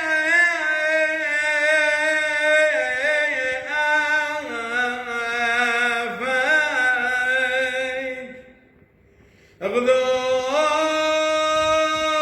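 Solo male voice chanting a Syriac liturgical hymn in long, ornamented held notes. The voice fades and breaks off for about a second near two-thirds of the way through, then comes back in on a new phrase.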